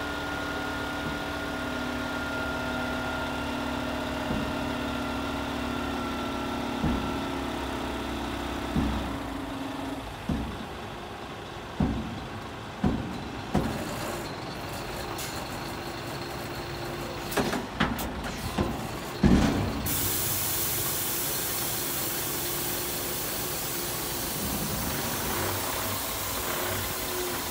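2011 Scania P360 tipper truck running, with a steady hydraulic whine as the dump body is raised; the whine stops about ten seconds in. A series of sharp clunks and knocks follows, the loudest about two-thirds of the way through, and then a steady hiss begins.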